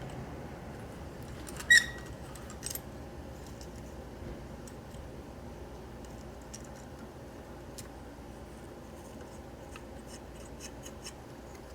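Small metal carburetor parts and hand tools handled on a workbench while a choke base plate is fitted. One sharp clink with a brief metallic ring comes about two seconds in, then a lighter tap. Faint small clicks follow near the end, over a steady low background hum.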